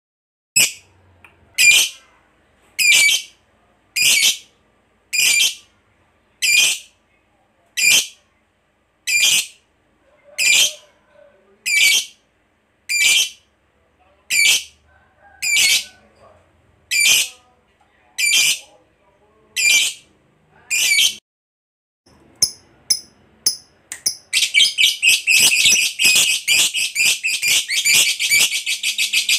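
Lovebird calling with sharp, high chirps about once a second, some seventeen times. After a few quicker calls it breaks into a long, rapid unbroken chatter, the 'ngekek panjang' trill prized in fighter lovebirds, for the last five seconds.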